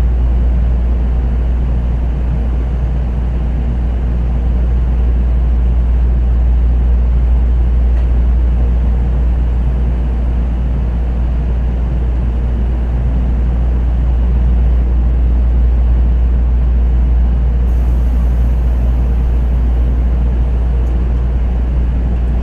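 Steady low hum and rumble of the cabin inside an N700A Shinkansen Green car, the train slowly moving or standing at a platform.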